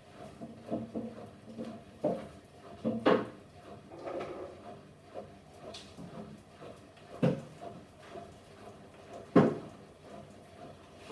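Electrolux washing machine on its spin cycle with an unbalanced load: the drum knocks and bangs irregularly against the cabinet over the steady running hum, the hardest bangs a few seconds apart.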